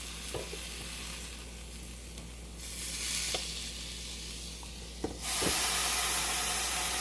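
Steak sizzling in hot fat with a few light taps of a utensil. The sizzle swells sharply about five seconds in and stays louder, as just after the steak is turned.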